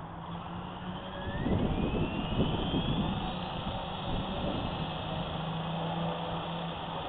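Small electric RC rotorcraft spinning up: the motor whine rises steadily in pitch from about a second in, then holds high and steady. A low rushing noise swells loudly while it spools up.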